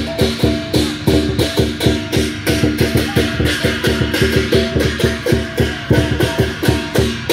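Lion dance percussion: a drum beaten with clashing cymbals in a fast, steady rhythm of about three to four strikes a second, with a ringing pitched tone under the strikes.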